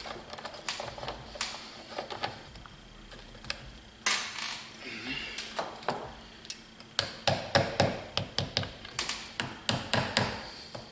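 Hand ratchet clicking in quick runs of strokes, mostly from about seven seconds in, as nuts on the battery bracket and terminal are tightened, with knocks of metal tools being handled.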